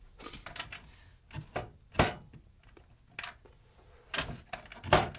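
Knocks and clicks of a small wooden cabinet door being opened and things handled, with a sharp thump about two seconds in and another near the end.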